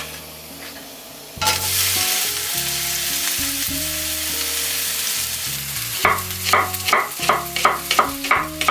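Sliced red onion sizzling in a hot frying pan; the sizzle starts suddenly about a second and a half in and fries steadily. About six seconds in it gives way to a kitchen knife slicing green onion on a wooden cutting board, crisp knocks at about four cuts a second.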